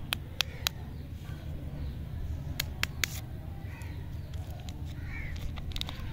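Plastic lollipop wrapper crinkling and crackling as it is peeled off by hand. Sharp crackles come in small groups, three at the start, three about two and a half seconds in and a cluster near the end, over a steady low rumble.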